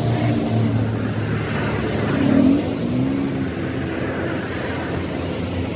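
A motor vehicle's engine running steadily, with a louder swoop in pitch a little over two seconds in.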